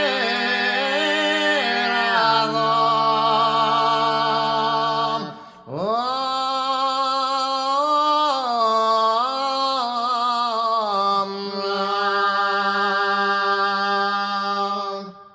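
Slow, chant-like Sicilian vocal music: one voice holds long low notes while another sings a wavering, ornamented line above it. The singing breaks off briefly about five and a half seconds in, starts again, and ends just before the close.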